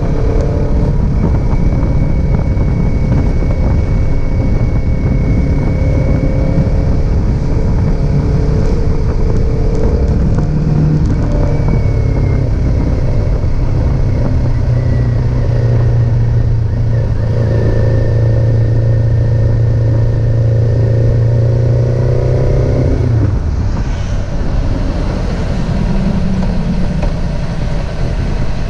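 Kawasaki Z400 parallel-twin motorcycle engine running, its pitch held steady for long stretches. About 23 seconds in the engine note drops away and it runs on more quietly.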